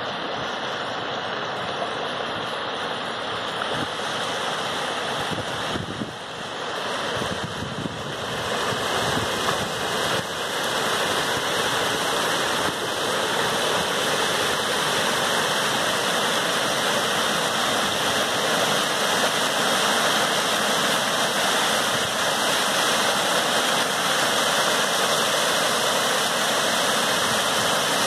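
Rows of ornamental fountain jets splashing into a shallow pool: a steady rush of falling water that grows louder and fuller from about eight seconds in as the jets climb higher.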